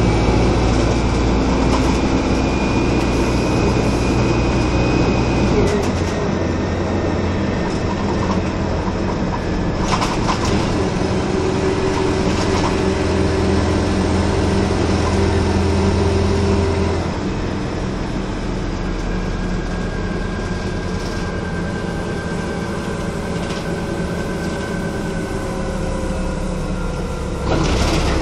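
Engine and drivetrain of a 1996 Nova Bus RTS transit bus heard from inside the cabin while it drives: a steady running drone whose pitch changes about six seconds in. About seventeen seconds in it eases off and gets quieter with a slowly falling whine, then picks up again and gets louder near the end.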